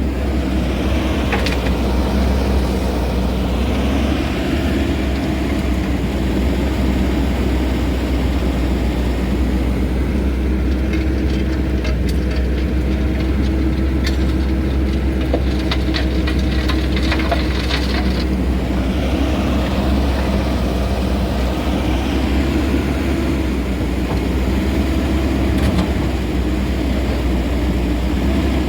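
Excavator's diesel engine running steadily, with scattered knocks and rattles from material tumbling in the rotating Gyru-Star screening bucket, most of them about midway through.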